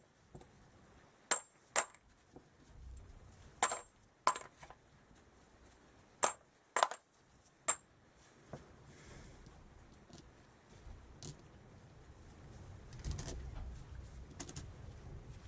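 Small steel bolts clinking as they are set down one at a time on a metal surface: about seven sharp separate clinks in the first eight seconds, then a few more clinks and a rattle near the end.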